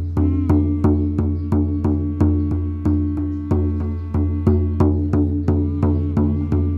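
Music: a shaman frame drum beaten at a steady pulse of about three strokes a second over a sustained low drone, with a few swooping overtones in the drone.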